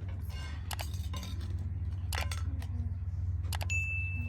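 Dishes and cutlery clinking in a series of sharp knocks. Near the end, one clink leaves a clear metallic ring hanging for about a second.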